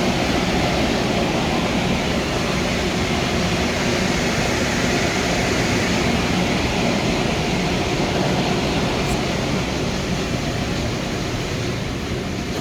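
Steady roar of steam boiler room machinery running: firing boilers with their pumps, easing off slightly near the end.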